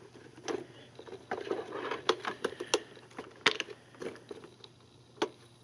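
Rubber drive track being worked back onto the plastic wheels of a Zodiac MX6 suction pool cleaner: scattered clicks and knocks of plastic and rubber being handled, the sharpest about three and a half seconds in.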